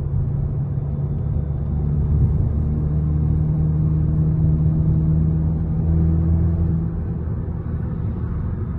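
Volkswagen Golf Mk7 GTI's turbocharged four-cylinder engine droning at a steady cruise in third gear, heard inside the cabin over tyre rumble; the engine note eases off about seven seconds in as the car slows.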